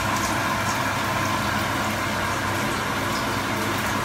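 Chopped onion frying in oil in a stainless steel frying pan, sizzling with small scattered pops, over a steady low hum and hiss.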